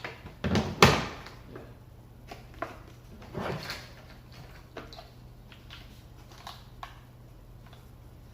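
A socket set case and its packaging being handled: scattered clicks and knocks, the loudest about a second in, and a short rustle midway.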